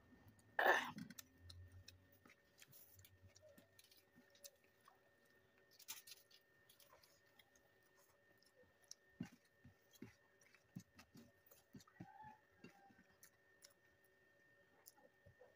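A person chewing food, with soft wet mouth clicks and smacks scattered throughout. A louder brief noisy burst comes about half a second in.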